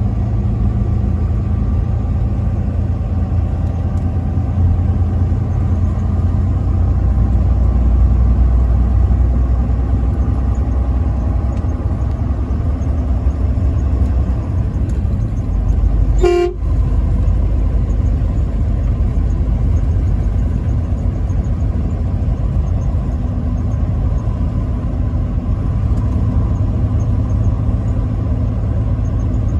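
A truck horn sounding in long held blasts over the steady low rumble of a vehicle driving.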